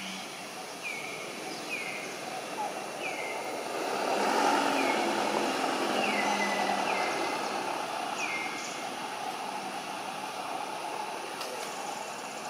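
A short high call that slides downward, repeated about once a second, over a broad outdoor rumble that swells in the middle and fades again.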